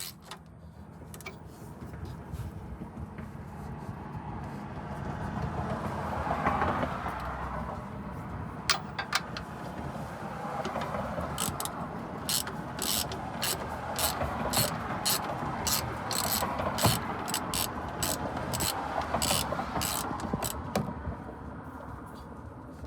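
Hand tools clicking and clattering during work under a pickup truck, a long irregular run of sharp clicks over a steady low rushing noise.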